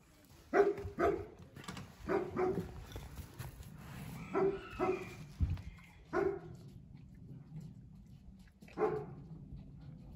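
An animal giving short barks, mostly in quick pairs: eight calls in all, the last two single and spaced further apart.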